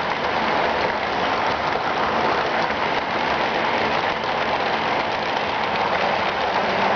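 HO-scale model trains running on track: a steady rushing whir of wheels and motors on the rails.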